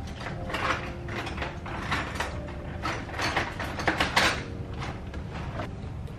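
A string of short, irregular clicks and scrapes, about a dozen over several seconds, over a steady low hum.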